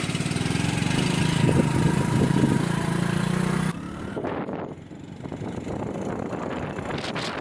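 Hero HF Deluxe motorcycle's single-cylinder engine running. It breaks off abruptly about halfway through, leaving quieter wind noise on the microphone.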